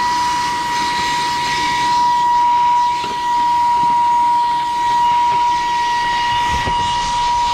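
Saker cordless mini vacuum cleaner running on its high setting: a steady motor whine over rushing air.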